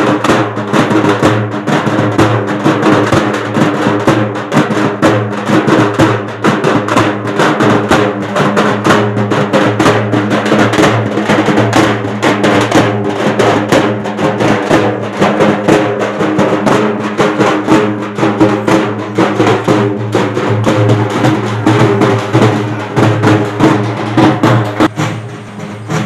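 Several dappu frame drums beaten with sticks in a fast, continuous, driving rhythm, the dense strokes running together; it gets quieter near the end.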